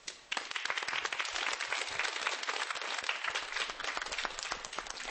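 Studio audience applauding the end of a stage performance: dense, continuous clapping that starts suddenly about a third of a second in.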